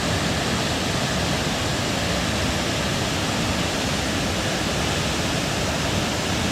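A waterfall: a steady, unbroken rush of falling water, loud and even throughout.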